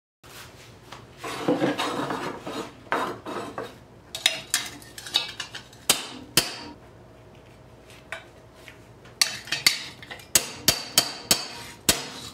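Hard objects clinking and knocking, like tools being handled, with scraping about a second in. Near the end comes a quick run of sharp knocks, about three a second.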